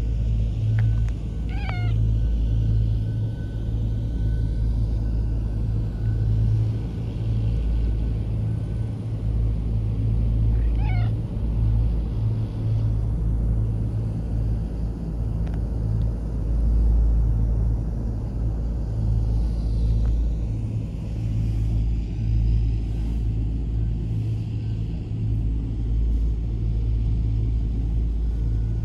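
Ginger tabby cat giving two short meows, about a second and a half in and again about eleven seconds in, over a steady low rumble.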